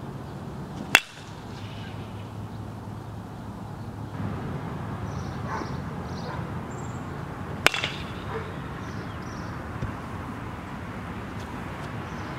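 Baseball bat hitting pitched balls in batting practice: two sharp cracks, about a second in and again about seven and a half seconds in, over a steady low outdoor hum.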